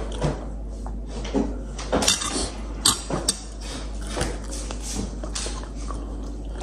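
Metal spoon and fork clinking and scraping against a white ceramic bowl of noodle soup, in a string of short clicks with the sharpest ones about two and three seconds in.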